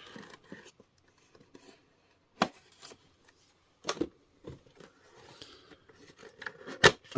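Cardboard action-figure box being handled and opened: soft rustling and scraping with three sharp clicks or taps, the last near the end the loudest.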